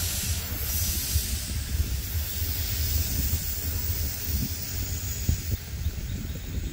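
Coal train's hopper cars rolling away on the rails: a steady hiss of wheels on rail over a low rumble, thinning out near the end as the last cars recede.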